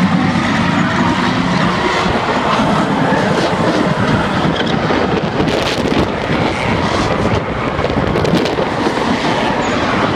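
Several drift cars running hard together in a line, engines held at high revs and tyres squealing as they slide, in a dense continuous wall of sound. A few brief sharp bursts cut through about halfway in and again near the end.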